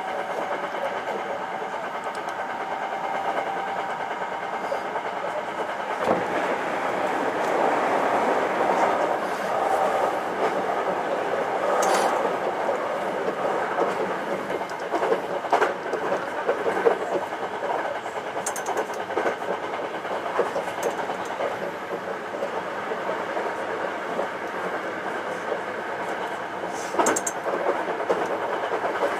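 Hankyu 9300-series electric train running along the line, a steady rumble of wheels on rail heard from inside the front of the train. Now and then the wheels clack sharply over rail joints, most plainly about twelve seconds in, around sixteen seconds and again near the end.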